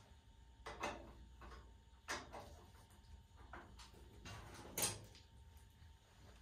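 A handful of light knocks and clicks from handling and working at the steel main door of a 1951 Vendo 39 Coke machine, the loudest about five seconds in.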